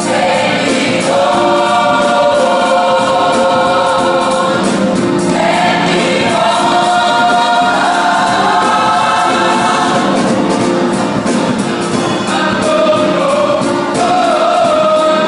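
Gospel choir singing in harmony, holding long chords for several seconds at a time.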